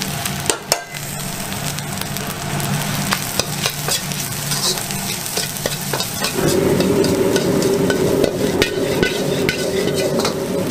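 Egg fried rice sizzling in a wok as a metal ladle stirs and scrapes it, with sharp clicks of the ladle striking the wok. About six seconds in, a steady low rumble joins and the sound grows louder.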